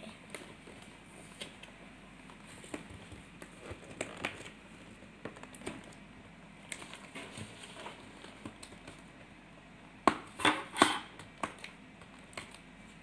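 Plastic toy packaging crinkling and crackling as fingers pick and peel at the wrapping, in scattered small clicks, with a louder flurry of crinkles about ten seconds in.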